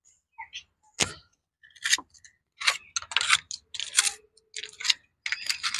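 Irregular short, scratchy rustles and scrapes, about eight of them, starting about a second in: a broom and hands clearing dry leaves from paving and a border of small stones.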